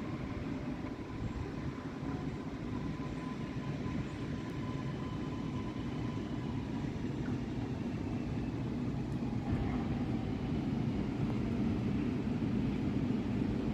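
A train running on the tracks: a steady low rumble that grows slightly louder, with a faint whine slowly gliding down in pitch.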